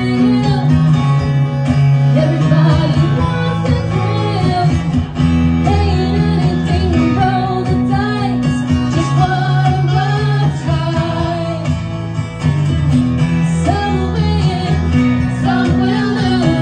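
Live music: a woman singing into a microphone over an acoustic guitar, played continuously.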